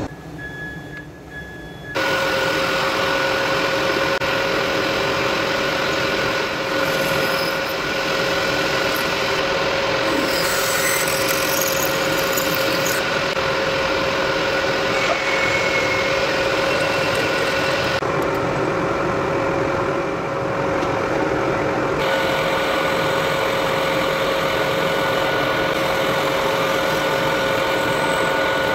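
Metal lathe running steadily with a constant whine, its spindle turning a small metal flywheel blank while it is drilled and faced, with metal-cutting noise over the whine. The first two seconds are quieter, then the machine sound comes in and shifts in texture every few seconds.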